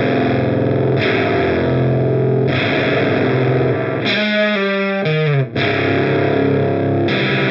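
Electric guitar played through an Audio Disruption Devices Transformations fuzz pedal: heavily distorted, fuzzy chords. About four seconds in it switches to a few single sustained notes, then the level briefly drops out and the chords come back.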